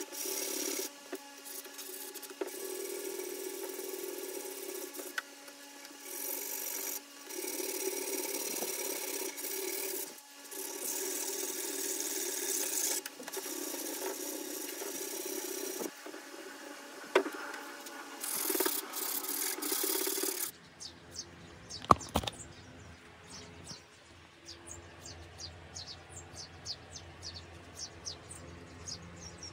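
Hardwood cutting board being rubbed by hand with an abrasive tool, in repeated strokes of one to three seconds with short pauses. About twenty seconds in the strokes stop, leaving a low hum with faint rapid ticking and one sharp click.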